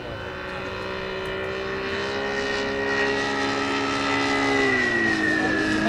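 Saito FG-90R3 three-cylinder radial gasoline engine of a large radio-controlled biplane in flight, its propeller drone growing steadily louder as the plane approaches. The pitch drops about five seconds in as it passes.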